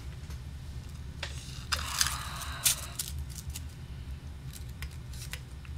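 Quiet handling of an oboe's keywork and a slip of cigarette paper: a few light clicks and a brief scratchy rustle about two seconds in, as a pad is closed on the paper to test its seal against the tone hole. A steady low hum sits underneath.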